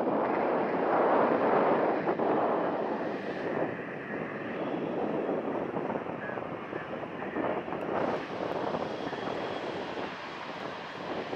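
Jet airliner's engines passing close, loudest over the first three seconds and then easing off to a steadier rumble, with a faint high whine in the middle.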